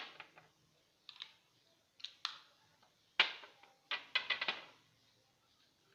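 Hard clicks and clacks of a vape box mod and its swappable cover panel being handled and fitted, in about five short clusters with pauses between.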